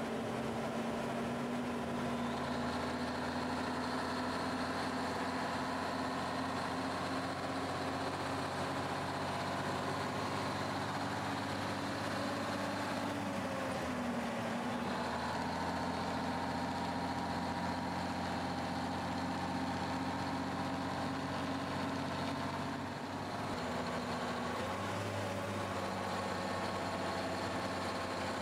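Diesel engine of a 1954 Freightliner tanker running steadily under load, heard from inside the cab. Twice, about halfway through and again near the end, the engine note drops and settles at a new pitch as the driver shifts gears on its two-stick transmission.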